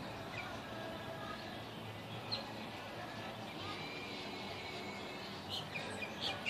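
Steady outdoor background noise with a few short bird chirps scattered through it, several coming close together near the end.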